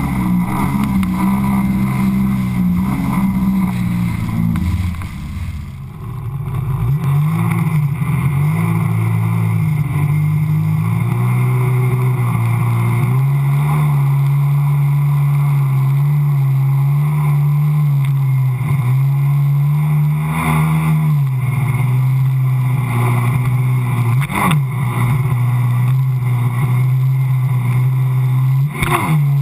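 Sea-Doo personal watercraft engine running at speed, with a steady drone over a rushing hiss of water spray. The engine note dips briefly about five seconds in, then holds steady with small shifts in pitch.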